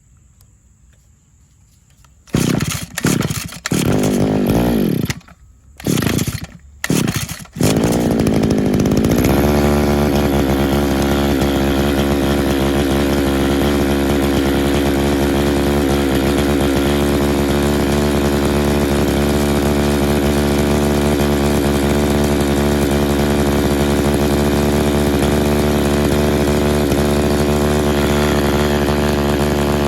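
Old RedMax edger's small two-stroke engine being pull-started: four short bursts as it fires briefly on the pulls, then it catches about eight seconds in and settles into a steady idle. The owner suspects a clogged carburetor jet, which keeps it from taking throttle.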